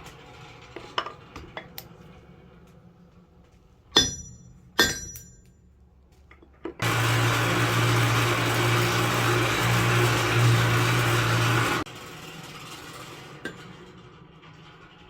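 Two ringing hammer blows on steel, a little under a second apart, then a small electric forge blower runs steadily for about five seconds with a low hum and cuts off suddenly.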